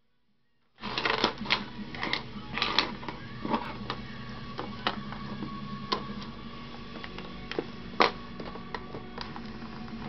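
Irregular clicks and knocks of the plastic case of a Bose portable CD player being handled and turned over, starting about a second in, with music playing in the background.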